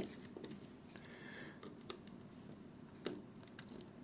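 Faint scattered clicks and a brief scrape of a flathead screwdriver prying at the plastic frame of a pocket LED light, with a sharper click at the start and another about three seconds in.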